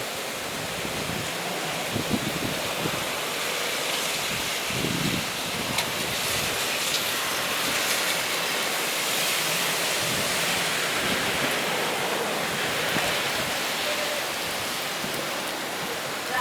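Steady rushing noise of stormy wind and rain as a typhoon approaches, with a few low thumps of wind buffeting the microphone.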